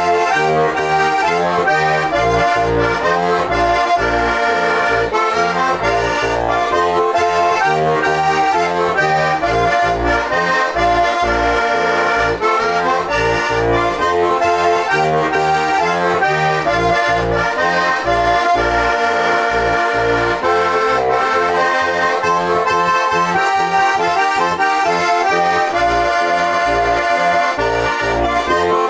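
Žúbor heligonka, a four-voice diatonic button accordion in F/B♭ tuning with brass reeds, playing a folk tune: a reedy treble melody over an even bass-and-chord accompaniment from the left-hand buttons.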